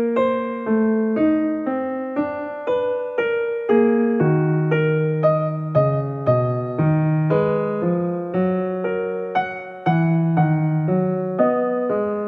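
Background piano music: a gentle melody of single struck notes, about two a second, in a steady rhythm.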